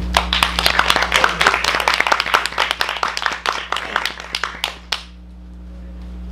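Audience applauding with many hands clapping. The applause thins out and stops about five seconds in.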